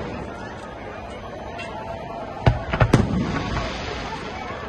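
Aerial fireworks going off: two sharp bangs of bursting shells a little after halfway through, with a few smaller cracks right after them.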